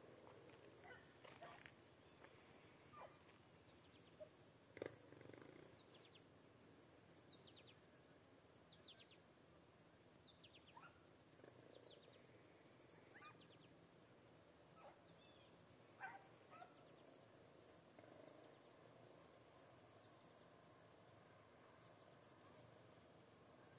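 Faint, steady insect chorus of crickets, with scattered faint calls from the beagle pack baying in the distance as it runs a rabbit.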